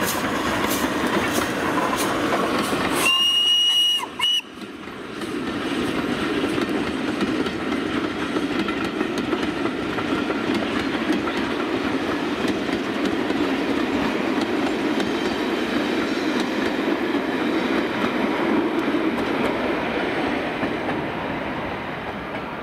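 Steam locomotive whistle: one blast of about a second, then a brief second toot. Around it is the steady running noise of a train on the rails, which grows fainter near the end.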